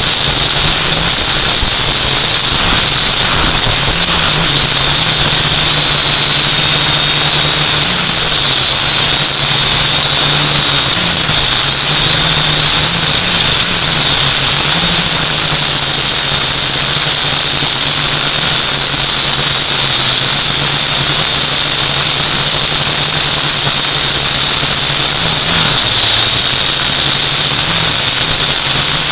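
Small quadcopter drone's motors and propellers whining loudly and steadily, a high whine over a low hum, with small pitch shifts as the motor speeds change in flight.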